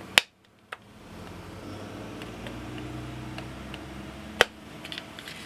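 A pick working at the plastic case of a Mercedes E290 glow plug relay, prying for its catch tabs: sharp plastic clicks, one just after the start and the loudest about four seconds in, over low handling and scraping noise.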